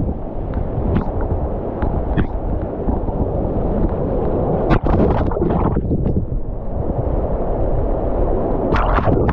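Loud, steady rush of floodwater churning over a low-head dam, heard at water level. Water splashes against the camera housing about five seconds in and again near the end.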